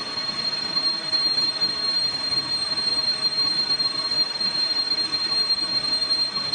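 Lathe turning a 1.4301 (304) stainless steel pipe: the cutting tool in the cut gives a steady high-pitched squeal over the noise of the turning workpiece and machine.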